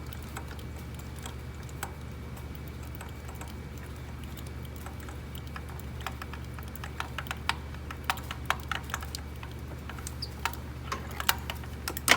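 Scattered light clicks and taps from hand-threading a spark plug into the Subaru engine, more frequent in the second half, over a steady low hum.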